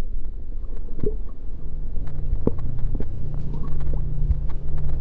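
Muffled water sloshing with scattered irregular clicks, picked up by a camera held underwater. A low steady hum joins in about a second and a half in.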